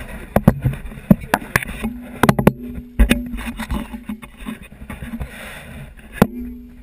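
Irregular sharp knocks and thumps of a large tigerfish and gear being handled on a boat deck, with a brief low steady hum about two seconds in.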